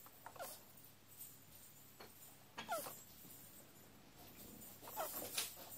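Male tortoise giving short squeaks as he mounts, three times about two and a half seconds apart, each falling in pitch: the squeaking call of a male tortoise mating.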